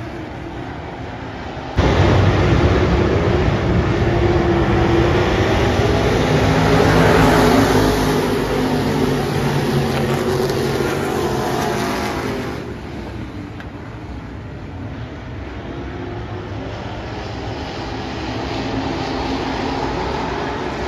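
A field of USRA Stock Car V8 engines racing around a dirt oval. It jumps suddenly louder about two seconds in as the cars come by, peaks, then drops back to a lower, steadier level after about twelve seconds.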